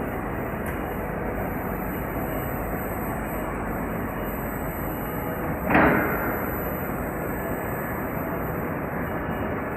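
Workshop machinery running with a steady noisy hum. About six seconds in comes one loud bang that rings out briefly, like a board or metal part knocking.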